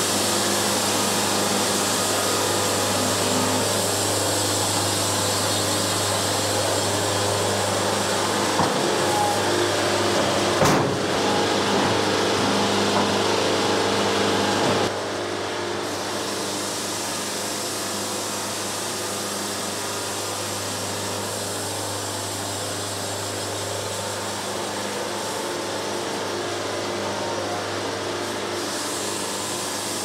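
Band sawmill running steadily through a cut, with a single sharp knock shortly before halfway. About halfway through the sound drops and stays lower and even.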